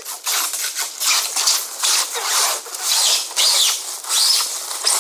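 A fabric layer being peeled by hand off a freshly cured resin mold surface: a continuous crackling, tearing rustle with a few short high squeaks as it pulls free.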